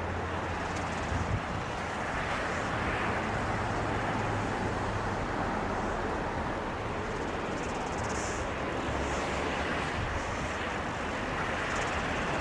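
Boeing 757-200's jet engines running with a steady rushing sound, growing a little louder near the end.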